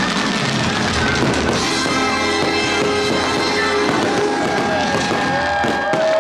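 A fireworks show's music soundtrack playing over aerial fireworks bursting, with a cluster of sharp bursts near the end.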